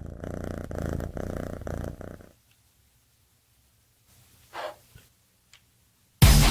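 A cat purring, a steady rumble that stops about two seconds in. Then near quiet with one brief faint sound, and a sudden loud sound right at the end.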